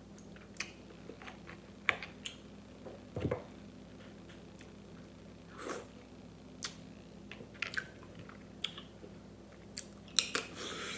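A person chewing snow crab meat and sucking sauce from her fingers, with scattered short sharp clicks and smacks.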